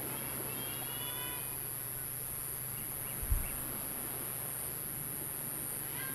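Insects trilling: one steady, very high-pitched trill, with a second trill pulsing on and off about once a second. A brief low thump comes about halfway through.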